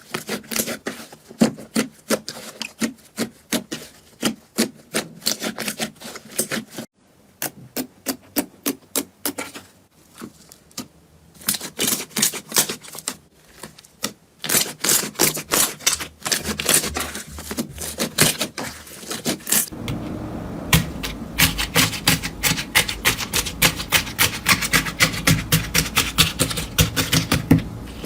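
Slime being squeezed and pressed by hand, giving a rapid run of crisp clicks, crackles and pops. The sound changes abruptly several times, with a steadier low rumble under the clicks near the end.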